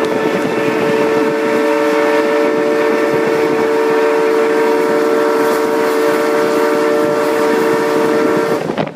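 Steam traction engine's whistle blowing one long steady blast that cuts off near the end.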